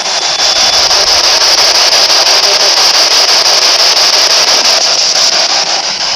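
Handheld radio used as a spirit box, scanning rapidly through stations and giving out a loud, steady hiss of static. Deep underground no broadcast signal gets in, so the sweep catches only static.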